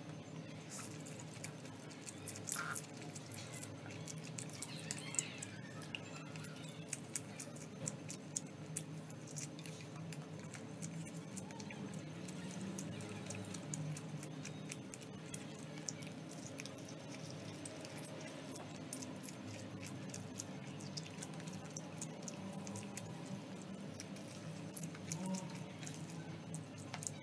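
Close-miked eating of spicy instant noodles: chewing, slurping and wet mouth clicks, a dense run of small ticks, with utensils now and then tapping against the pan.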